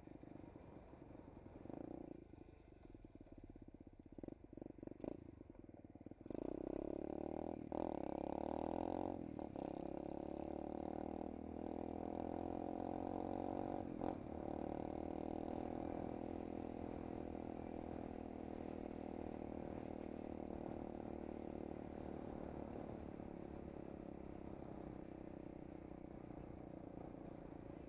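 SSR 125cc pit bike's single-cylinder four-stroke engine running while being ridden. It is quieter with a few clicks at first, then gets suddenly louder about six seconds in as the bike pulls away, its pitch wavering, and slowly eases off toward the end.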